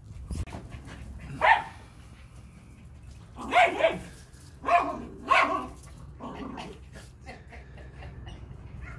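Schipperkes barking during tug-of-war play with a toy: about five short barks between one and a half and five and a half seconds in, with a fainter one after.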